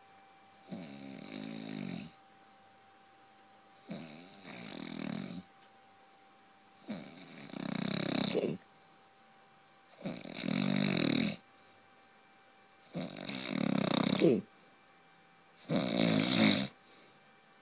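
A man snoring loudly in his sleep: six snores about three seconds apart, each lasting a second or more, with quiet pauses between them.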